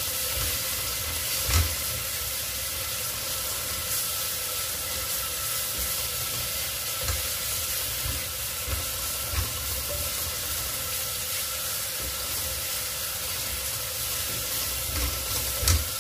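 Curry paste sizzling as it fries in a hot pot, being stirred, with a few sharp knocks against the pot now and then. The paste is being fried until fragrant, the first stage of a laksa broth.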